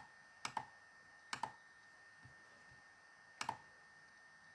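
Three short, sharp computer mouse clicks, each a quick press-and-release double tick, spaced about a second and two seconds apart, over faint steady background hiss.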